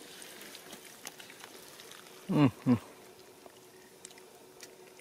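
Hands digging and squeezing through wet mud, with faint squelching and small clicks. About halfway through there are two short, loud vocal sounds, each falling in pitch.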